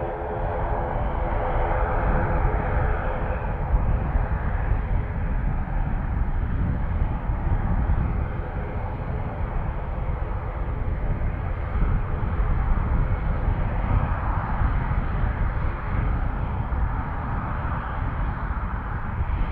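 Fixed-wing aircraft engines on a landing pass: a pitched engine whine fades over the first few seconds, leaving a steady low rumble.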